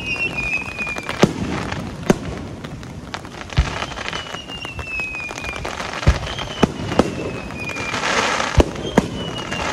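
Aerial fireworks display: shells burst with about eight sharp bangs at irregular intervals, over several whistles that slide down in pitch. About eight seconds in there is a short crackling hiss.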